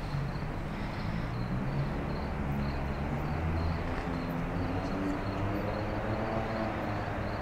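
Street ambience at night: a vehicle engine hums low and shifts in pitch, and its pitch rises near the end. Crickets chirp faintly a few times a second.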